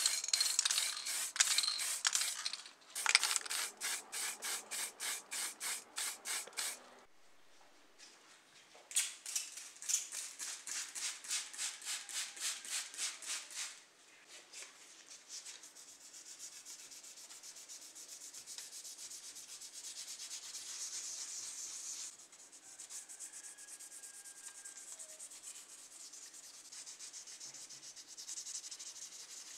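Quick rhythmic rubbing strokes on a small plastic model car body, about four strokes a second, in three runs with short pauses between them. In the second half this gives way to a softer, steadier rubbing.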